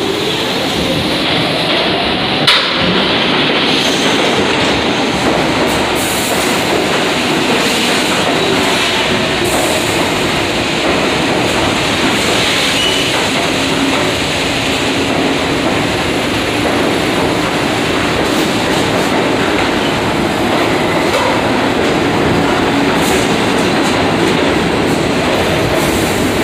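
New York City subway train moving alongside the platform: a steady, loud rumble of wheels on rail with a faint whine gliding up and down in pitch. One sharp click stands out about two and a half seconds in.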